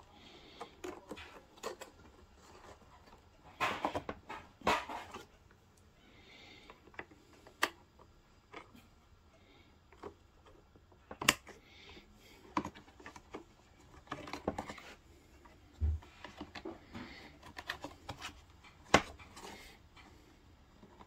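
Handling noise from wiring being worked into a steam iron's plastic base: irregular plastic clicks and rustling, with a few sharp clicks standing out, the loudest about 11 and 19 seconds in.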